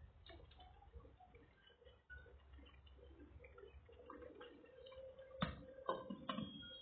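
Faint irregular popping and plopping of a pot of chicken curry simmering, its thick sauce bubbling, with a few sharper pops about five and a half to six and a half seconds in.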